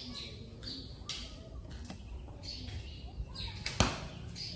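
Birds chirping in short high calls every second or so over a low outdoor rumble, with one sharp click about four seconds in.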